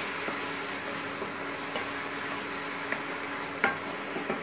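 Onion, garlic and ginger spice paste with a splash of water sizzling steadily in oil in a non-stick pan while being cooked down. A wooden spatula stirs and scrapes it, knocking against the pan a few times, loudest about three and a half seconds in.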